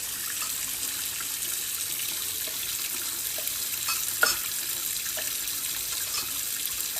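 Steady rush of running water, with a few small clicks and splashes and a sharper knock about four seconds in.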